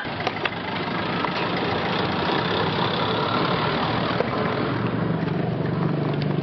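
Skateboard wheels rolling over rough concrete: a steady rolling rumble, with a deeper hum coming in about four to five seconds in.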